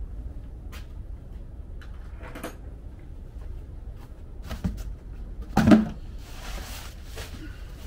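A single loud knock about six seconds in, with a few faint clicks before it and a brief rustle after it, over a steady low rumble.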